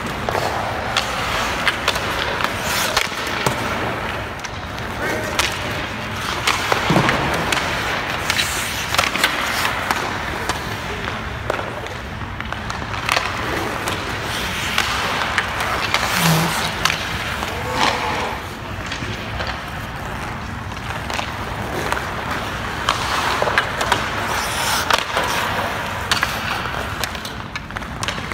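Hockey skate blades and goalie pads scraping across rink ice, with frequent sharp knocks of sticks and pucks.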